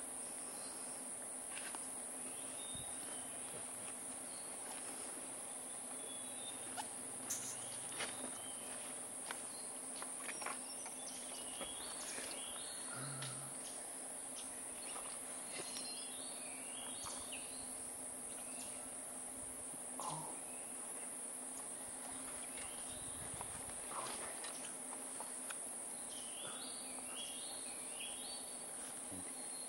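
Steady, high-pitched insect drone, like crickets or cicadas in tropical montane forest, holding at one pitch throughout. It is broken now and then by small clusters of faint, short high chirps and a few brief clicks.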